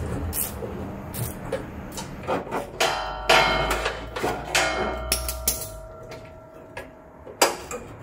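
Hand tools and bolts clinking and knocking against the truck's under cover as its tight bolts are undone. A ringing metal clang comes a little after three seconds, another shorter ring around five seconds, and a sharp knock near the end.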